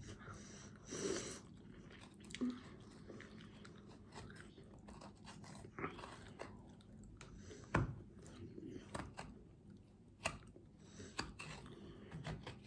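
Close-up eating sounds: chewing, with scattered light clicks and knocks of a utensil working a papaya. One sharper knock comes a little past the middle.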